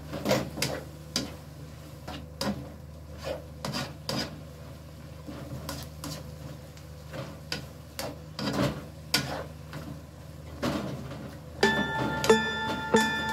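A spatula scraping and tapping against a nonstick wok as shredded cabbage and carrots are stir-fried, in irregular strokes over a steady low hum. Plucked guitar music comes in near the end.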